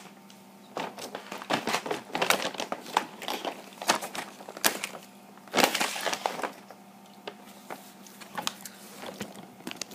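Clear plastic zip-top bag crinkling and crackling in irregular bursts as it is handled, busiest in the middle and dying away near the end.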